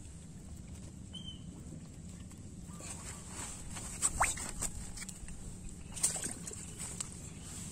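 Mesh fishing keep net being handled: soft rustling with a few brief knocks and scrapes, the loudest about four and six seconds in.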